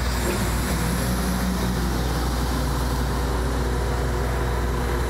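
Diesel engine of a truck-mounted hydraulic crane running steadily with a constant low hum.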